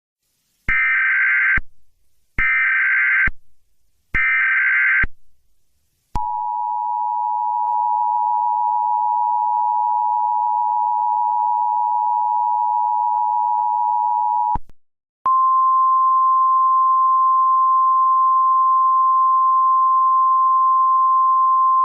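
Emergency Alert System tones. First come three short bursts of the SAME digital header, then the two-tone attention signal sounds steadily for about eight seconds. After a brief gap a single steady NOAA Weather Radio 1050 Hz warning alarm tone begins; here it opens a tornado warning.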